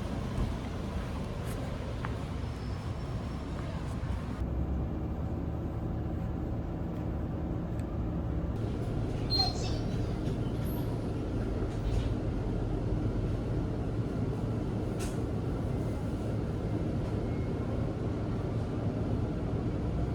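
Steady low rumble of a moving vehicle heard from inside, with a brief squeal and a few clicks about halfway through.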